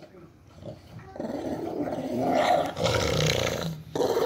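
Dog growling over its food bowl while eating: a food-guarding growl at being bothered during its meal. The growl starts about a second in, swells louder in the middle, breaks off briefly near the end and starts again.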